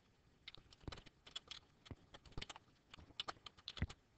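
Computer keyboard typing: a run of irregular, fairly faint key clicks that starts about half a second in.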